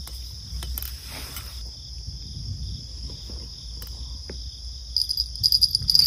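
Crickets chirping in a steady, high, even trill, with a few faint clicks. About five seconds in, the trill grows louder and pulses.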